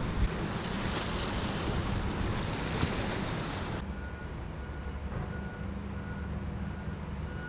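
Wind buffeting the microphone over surf. About four seconds in, this cuts to a steady low engine hum with a faint high beep repeating about twice a second.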